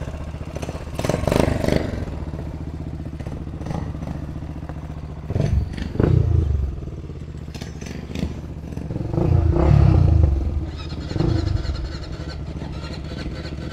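Honda 400EX quad's single-cylinder four-stroke engine idling, with short revs about a second in and around six seconds in, and a longer rev around ten seconds in.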